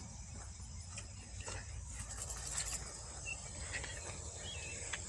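Faint outdoor ambience: a steady high-pitched insect drone, with two faint bird chirps in the second half and a low rumble underneath.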